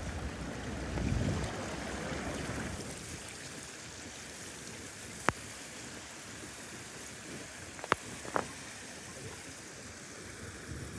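Steady rushing noise of wind and water, with three short sharp clicks about five and eight seconds in.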